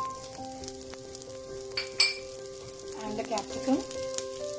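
Cut onion and green capsicum sizzling as they are tipped from a bowl into hot oil with browned garlic in a nonstick wok, with a sharp clink about two seconds in.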